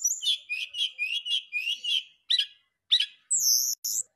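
Brown-chested jungle flycatcher singing: a quick run of short, high chirping notes, then a few separate sharp notes and a longer high whistled note a little after three seconds in.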